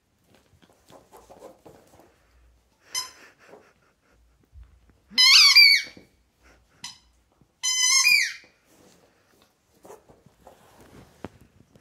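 Rubber squeaky ball squeezed in a miniature dachshund's mouth: a short squeak about three seconds in, then two long, loud squeaks falling in pitch, with a brief one between them. Soft scuffling on the mat comes between and after the squeaks.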